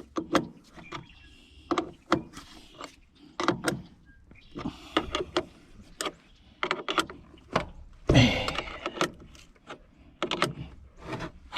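Irregular metallic clicks and clanks of jumper batteries and their cable clamps being handled and connected to a truck. A louder short sound with a falling pitch comes about eight seconds in.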